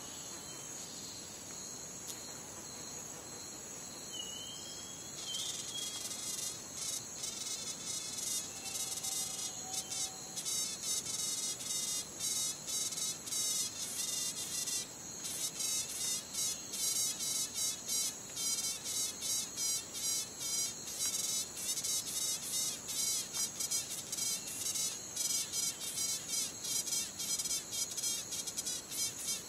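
An insect calling with a high-pitched buzz: steady for the first few seconds, then about five seconds in it breaks into a fast, pulsing rhythm that keeps going.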